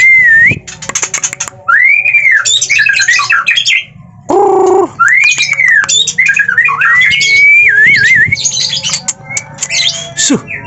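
White-rumped shama singing: a loud, varied song of clear arching and looping whistles mixed with rapid chattering notes and clicks, with a short harsh nasal note about four seconds in.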